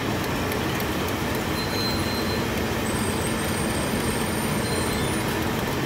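Automatic tortilla machine running: a steady, dense mechanical noise from its motor and wire-mesh conveyor, with a faint high whine for a couple of seconds in the middle.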